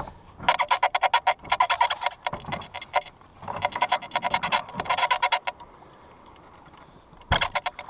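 Rapid mechanical clicking, about ten clicks a second, in three runs with short breaks, then a short loud clatter near the end.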